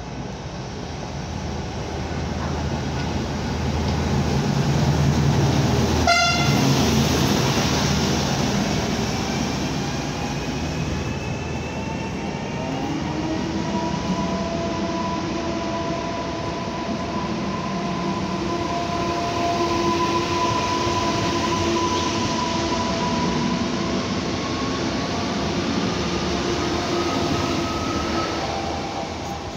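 Newag Impuls 2 electric multiple unit running along the platform. Its rolling noise builds over the first few seconds, a short horn toot comes about six seconds in, and then the electric motors give a whine in several tones that glides up in pitch at times.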